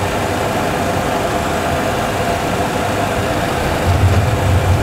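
Steady simulated airflow and cockpit noise of a Boeing 737 full-flight simulator gliding in with both engines shut down, with a low rumble swelling about four seconds in as the main wheels touch the runway.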